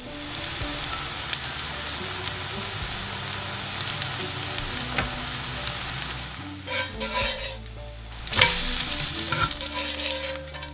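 Pancake batter sizzling and frying on a hot cast-iron pan, with a few light clicks of the spatula. The sizzle eases about six and a half seconds in, then flares up louder about eight and a half seconds in.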